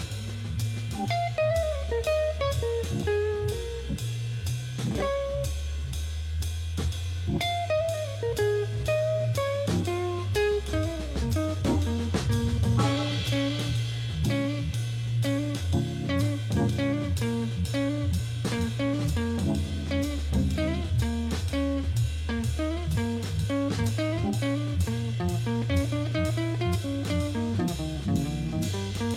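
Background music: a guitar-led tune over a steady drum-kit beat.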